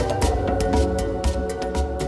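Background music with a steady beat and sustained tones, fading out.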